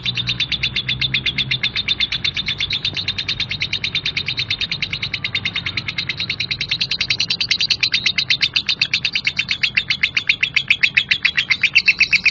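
Lovebird singing a long, rough 'ngekek' chatter: a fast, even string of short harsh notes, about a dozen a second, without a break and growing louder in the second half.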